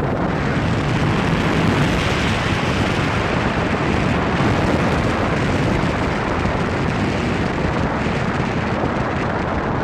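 Steady, loud rush of wind buffeting the microphone over the road and tyre noise of a vehicle driving along an unpaved forest road.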